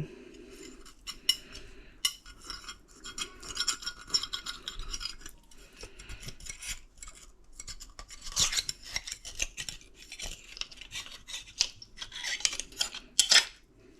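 Butter knife scraping along the inside of a Pismo clam shell, prying the meat and adductor muscles loose. It makes a string of uneven scrapes and sharp clicks of metal on shell.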